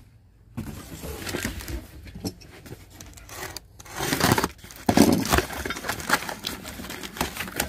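A cardboard shipping box being opened by hand: packing tape slit with a box cutter and torn, with the flaps pulled apart in irregular scraping, crackling rustles. The loudest tearing comes about four to five seconds in.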